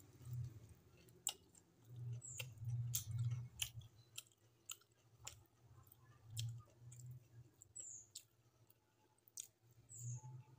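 Close-miked chewing of a mouthful of fried onion pakora and rice, in uneven low mouth sounds broken by many sharp, wet mouth clicks.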